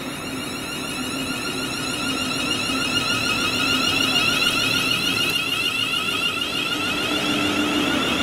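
Class 350 Siemens Desiro electric multiple unit pulling away, its traction inverters giving a rising electronic whine in several stacked tones. The whine grows louder over the first few seconds as the train gathers speed.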